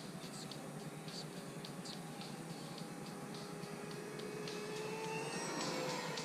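Brushless electric motor and propeller of an E-Flite F4U Corsair model plane in flight, a steady whine over a hiss of air, its pitch rising and shifting in the last couple of seconds.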